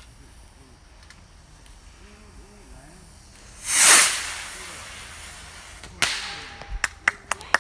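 Bottle rocket launching: a loud whoosh about four seconds in that trails off as a hiss, then a sharp pop about two seconds later. A run of sharp clicks follows near the end.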